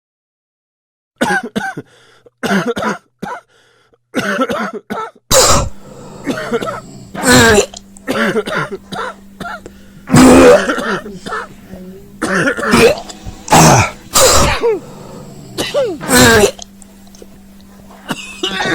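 A person coughing again and again in irregular loud bursts, with throat clearing, starting about a second in.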